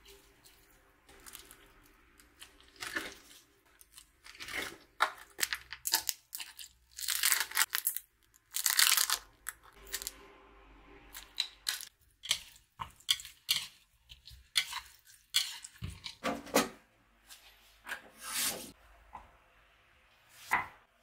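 Food-prep handling: a run of short rustles, rasps and clicks as seasonings are spooned and squeezed from a tube into a glass mixing bowl. The longest and loudest rasp comes about eight seconds in. Near the end a kitchen knife cuts eggplant on a bamboo cutting board with a few sharp knocks.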